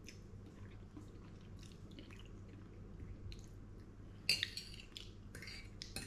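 Quiet chewing of a mouthful, then a metal fork scraping and clinking on a ceramic plate a few times in the last two seconds.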